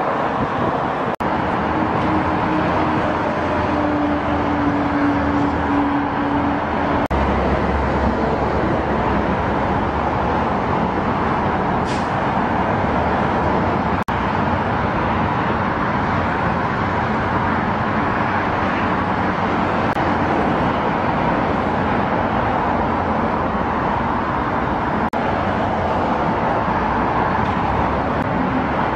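Steady road traffic noise from an urban expressway: a continuous hiss of passing vehicles. A low droning tone is held for a few seconds near the start, and a deeper rumble comes about seven seconds in.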